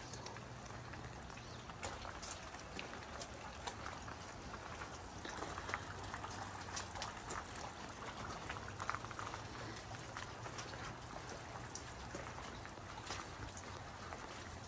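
Footsteps crunching on wet gravel: irregular crunches and small ticks over a steady outdoor hiss.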